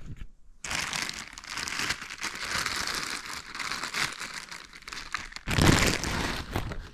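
Plastic packaging crinkling and rustling steadily as an item is handled and unwrapped, with a louder, fuller rustle about five and a half seconds in.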